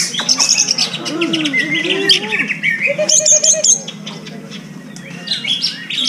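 Green leafbird (cucak ijo) singing a fast, varied run of chirps and whistles, with a short lull about two-thirds of the way through.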